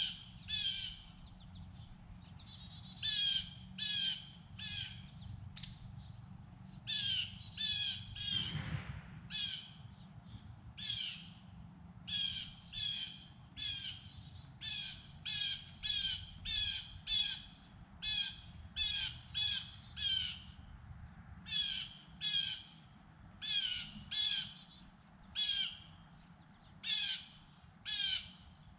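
A bird giving harsh, cawing calls about once a second, often in quick pairs, over a low steady rumble. A short rushing noise comes about a third of the way through.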